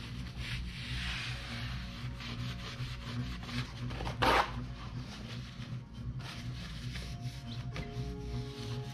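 Hand scraping and rubbing in the roof-trim channel of a pickup truck's roof: repeated scrapes with one short, louder scrape about four seconds in. Faint background music comes in near the end.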